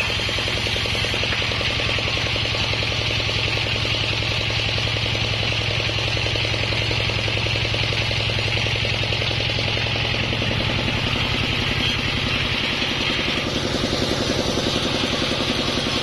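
Bandsaw mill running steadily, with a fast even pulsing and a low hum, its blade cutting through a sonokeling (Indonesian rosewood) log. The higher cutting noise drops away about thirteen seconds in, and the machine keeps running.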